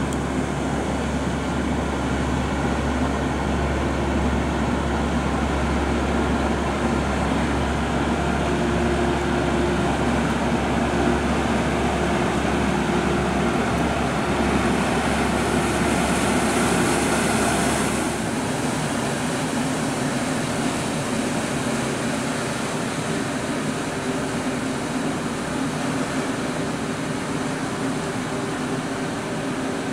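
Steady low drone of a passing inland cargo convoy's diesel engine. About two-thirds of the way through, the deepest part of the hum drops away and the drone goes on thinner.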